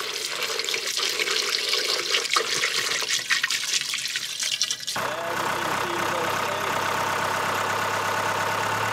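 Coolant splashing and gurgling as it is poured from a jug through a funnel into a diesel engine's coolant filler. About five seconds in this cuts abruptly to the marine diesel engine idling steadily.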